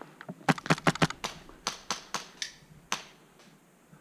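Airsoft gunfire: about ten sharp cracks in an uneven string over some two and a half seconds, closest together in the first second.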